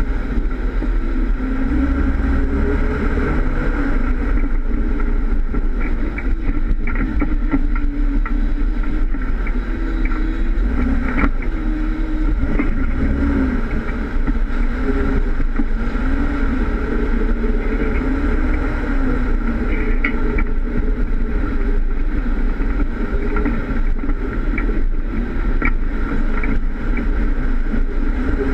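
Jeep Wrangler engine labouring at low speed over rough off-road terrain, its note rising and falling with the throttle, heard from the front bumper. A few sharp knocks, from the Jeep or the rocks it drives over, break through now and then.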